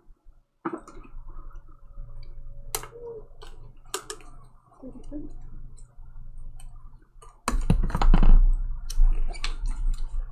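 Irregular light clicks and taps, with a louder stretch of clicks and knocks about seven and a half seconds in.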